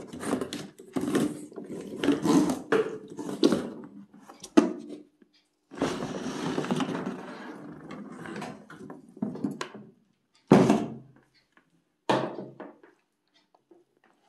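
Cardboard box and the plastic body of a wet-and-dry vacuum cleaner being handled: cardboard rubbing and scraping, then a longer stretch of rubbing, with a few sharp thunks about halfway through and near the end.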